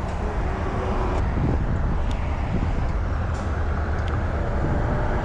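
Steady low rumble of street traffic, with a few faint ticks.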